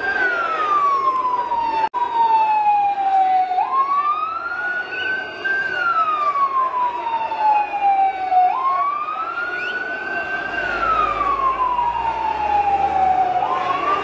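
Emergency vehicle siren wailing: a tone that climbs over about two seconds and then sinks slowly over about three, repeating roughly every five seconds. The sound cuts out for an instant about two seconds in.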